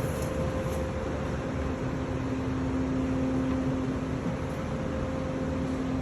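Ducted air-conditioning indoor unit running: steady airflow rush with a hum, and a second, lower hum tone joining about a second and a half in.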